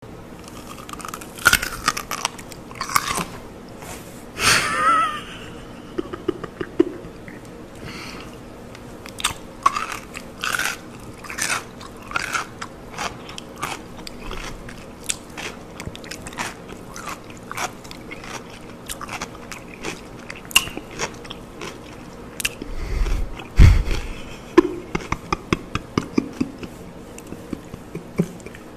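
Whole pickled cucumbers being bitten and chewed close to the microphone: a long run of sharp crunches and chewing clicks, with a heavier thump about three-quarters of the way in.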